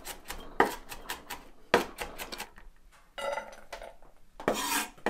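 A chef's knife chopping garlic on a wooden cutting board, a string of irregular sharp knocks. About three seconds in, the blade strikes the metal bowl with a brief ring, then scrapes the chopped garlic off into it near the end.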